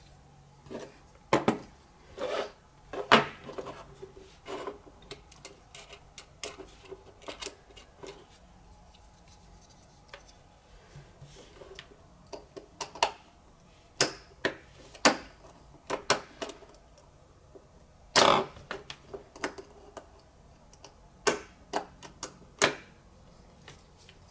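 Irregular clicks and knocks of spring-loaded alligator-style test clips and a plastic-cased circuit breaker being handled, set down on a wooden desk, and clipped onto the breaker's metal studs, with louder knocks about 3 and 18 seconds in.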